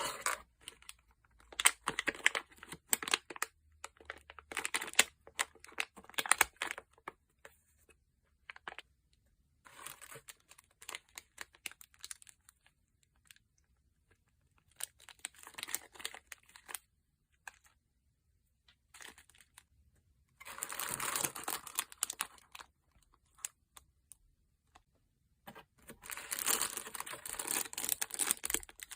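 Thick slime being squished, stretched and poked by hand, giving off spells of crackling clicks and small pops. The spells last two or three seconds each, with short quiet pauses between them.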